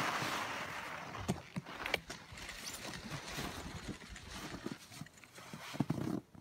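Snowboard sliding over snow with a rushing hiss that fades in the first second as the rider comes to rest on the snow. Then come scattered crunches, scrapes and knocks of board and boots on packed snow as he struggles back up.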